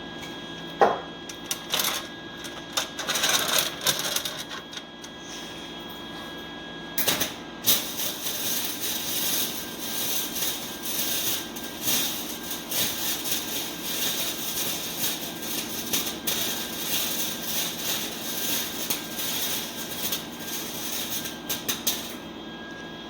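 Wire-feed (MIG) welder arc crackling and spitting in an irregular stream for about fifteen seconds while welding an exhaust pipe, stopping suddenly near the end. A few scattered clicks and knocks come before it.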